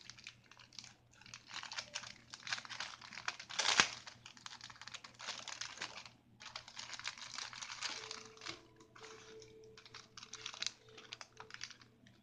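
Clear cellophane packets of nail-art embellishments crinkling and crackling as they are handled, in quick irregular clicks, with one sharper crackle about four seconds in.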